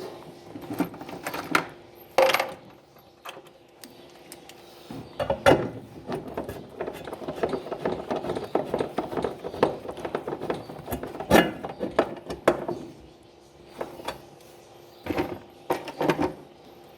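Screws being driven in with a screwdriver to fasten a washing machine's tray: scattered clicks and knocks, then several seconds of dense, irregular ratcheting clicks as a screw is turned down.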